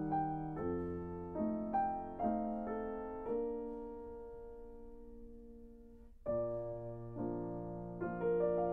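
Background piano music: a run of notes and chords, then a held chord that fades away before new chords come in about six seconds in.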